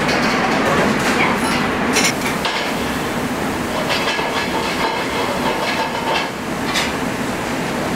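Commercial kitchen at work: a steady background rush with metal pans and utensils clanking now and then, the sharpest strike about two seconds in.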